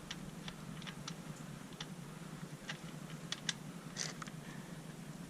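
Scattered, irregular light clicks and taps from hands handling and fitting parts onto a new car radiator, over a low steady hum.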